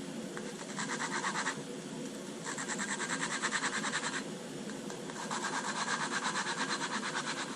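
Brisk back-and-forth scrubbing or scraping, in three bouts of rapid even strokes with short pauses between them.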